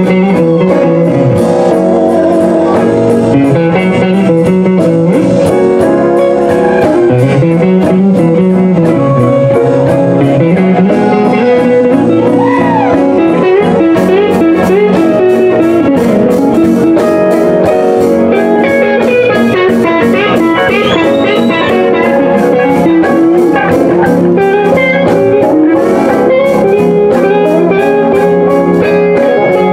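Live blues band playing a slow blues, with a lead electric guitar soloing in bent, gliding notes over the band.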